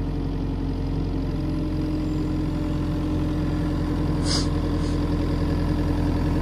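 Hitachi tracked excavator's diesel engine running steadily while the arm is lifted, with a steady hydraulic tone joining in about a second and a half in. A brief high sound comes about four seconds in.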